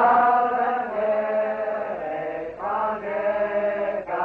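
A group of men singing together, slow and steady, in long held notes broken into phrases with short breaths between them.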